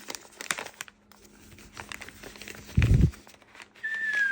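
Plastic packaging crinkling with light clicks and taps as a small drone and its box are handled, and a soft thump about three seconds in. Near the end a clean, whistle-like tone starts and slides slowly downward.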